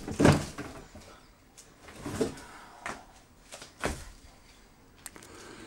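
A few scattered soft knocks and rustles, the first, just after the start, the loudest.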